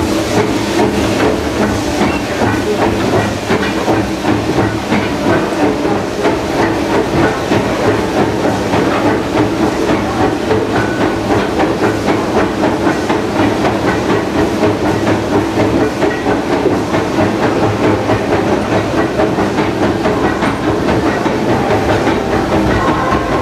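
A 1925 Baldwin 2-4-0 steam locomotive running, heard from its cab: a loud, continuous hiss of steam over the running noise of the engine and wheels, with a quick, regular pulse.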